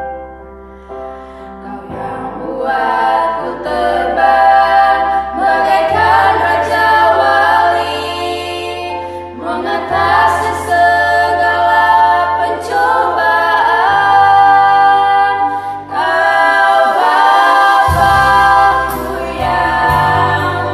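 A group of children singing a gospel praise song together in harmony, with steady low notes underneath that change every few seconds.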